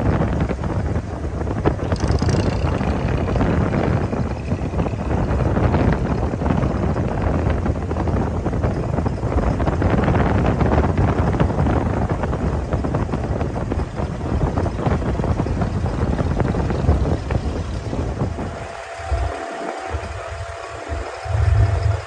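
Wind rushing over the microphone above the engine of an abra water taxi under way. About three-quarters of the way through, the wind drops away and the engine is heard on its own as a low, uneven throb with a faint steady whine.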